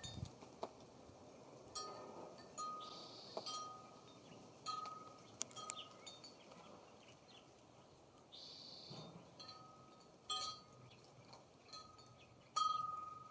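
Wind chime ringing lightly and irregularly, a clear note that sounds again every second or two, with occasional short high bird calls and light clicks.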